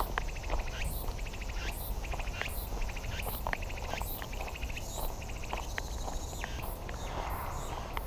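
Footsteps crunching on a dirt forest path at a steady walking pace, about three steps every two seconds, over insects trilling in fast pulses that come and go. A low steady rumble lies underneath.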